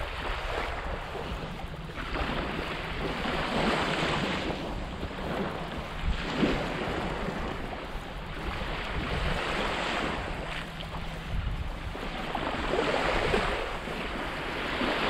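Small waves washing onto a sandy shore, swelling and fading every two to three seconds, with wind rumbling on the microphone.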